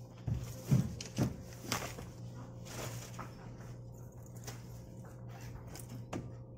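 Room tone with a steady low hum, and people shuffling about: a few short knocks and brief sounds in the first two seconds, then a single click about six seconds in.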